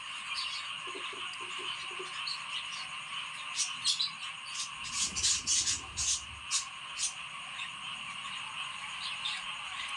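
Budgerigar chicks begging to be fed, a continuous raspy chittering chorus, with a run of sharp clicks in the middle.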